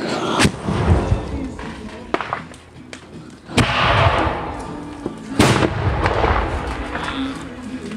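Oil-drum carbide cannons firing: three loud bangs, about half a second, three and a half and five and a half seconds in, each followed by a rolling echo, with smaller cracks between.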